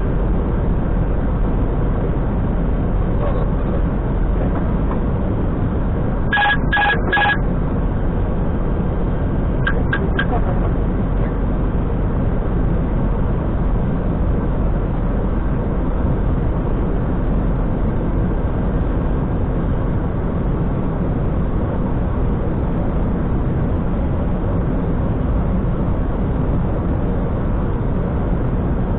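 Steady rushing noise inside an Airbus A320 cockpit on final approach, from airflow and the engines. Three short beeps sound about six seconds in, and three fainter, quicker ones about ten seconds in.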